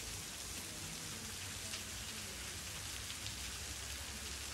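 Thin waterfall falling from a sandstone cliff overhang: a steady hiss of water spattering onto the rocks below.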